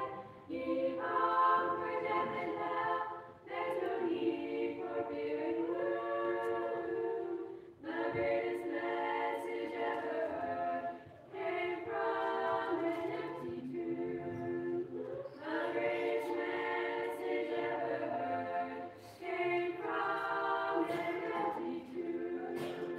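Mixed choir of boys' and girls' voices singing a cappella in parts, phrase by phrase with short breaks for breath between lines.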